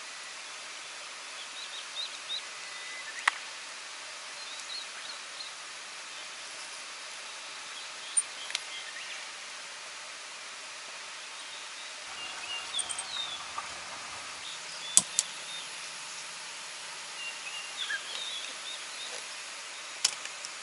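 Steady outdoor background hiss with small birds chirping now and then. Four sharp clicks and knocks of cooking gear being handled come a few seconds apart, the one about two-thirds of the way in the loudest.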